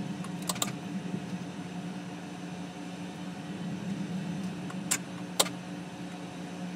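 Steady hum inside a jet's cockpit while it taxis with the engines at idle, with a few sharp clicks about half a second in and twice around five seconds in.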